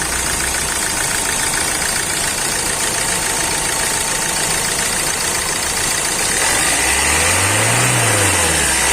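Hyundai i20's 1.4 CRDi diesel engine idling, then revved up and back down once about six and a half seconds in, and starting to rise again at the end. It now runs after a faulty number-one injector was replaced: that injector's heavy return leak had kept rail pressure too low for the engine to start.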